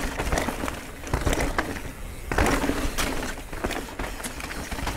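Canyon Spectral 29 CF 9 mountain bike ridden fast down a dirt trail: tyres rolling over dirt and roots, with frequent clatters and knocks from the bike over bumps, under a steady rush of wind noise.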